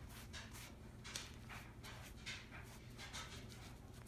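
Faint, irregular soft swishes of a foam brush spreading fabric paint over upholstery fabric.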